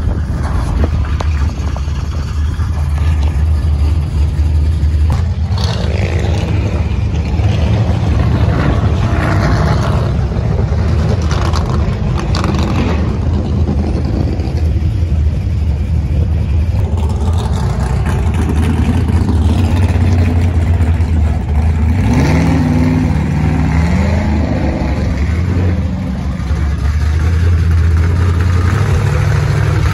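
Engines and exhausts of cars and trucks pulling out and accelerating past, running steadily loud, with one engine revving up in a rising pitch about two-thirds of the way through.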